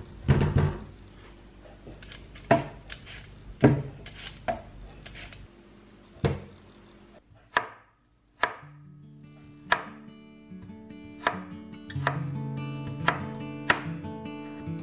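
Knife chopping on a cutting board: single sharp chops at irregular intervals. Acoustic guitar music comes in about halfway and continues under the last few chops.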